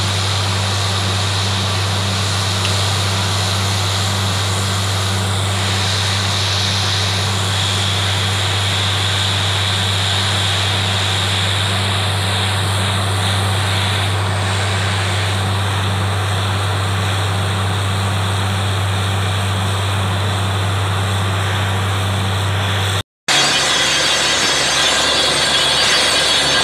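Truck-mounted borewell drilling rig running steadily, its engine and air compressor giving a constant low hum under a wide even noise. After a cut near the end the rig sounds closer and busier as muddy water is blown up out of the bore.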